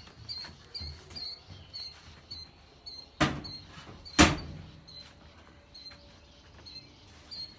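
Heavy steel toolbox set down on a wooden floor: two sharp knocks about a second apart, the second louder.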